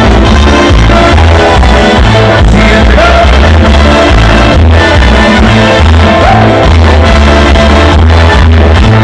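Loud music with a heavy, steady low-end beat and pitched instruments, with some singing or shouting over it.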